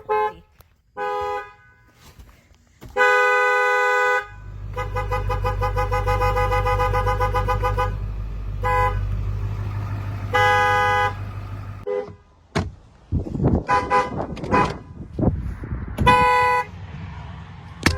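Two-note car horns honked several times: a brief toot about a second in, a long blast at about 3 s that runs on to about 8 s with a low rumble beneath it, then short and medium blasts around 9, 10 to 11, 12 and 16 s.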